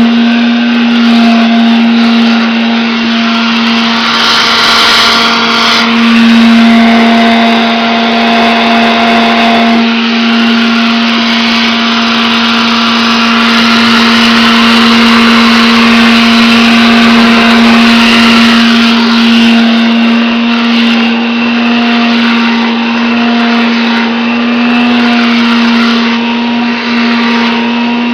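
Hoover Dustette handheld vacuum cleaner running steadily: a loud, even motor hum over a rush of air, the freshly rebuilt machine running smoothly.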